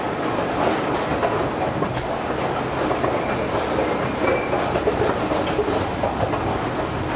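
ValmetSchlieren escalator running: a steady mechanical rumble with a continual light rattle from the moving steps.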